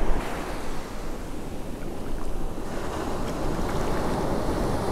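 Surf washing up the beach over the sand, a steady rush of water and foam.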